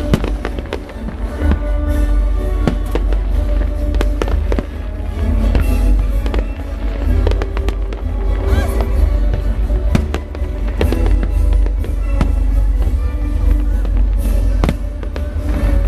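Fireworks going off in rapid, repeated bangs, with music playing along steadily underneath.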